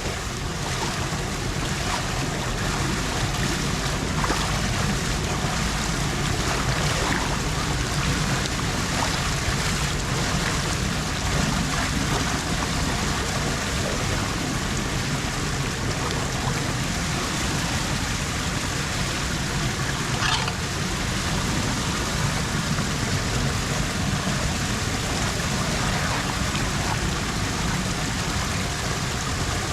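Floodwater running steadily into a street storm drain.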